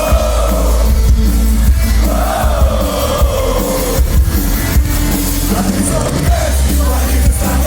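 Live rock band playing loud, with heavy bass, drum hits and sung vocals.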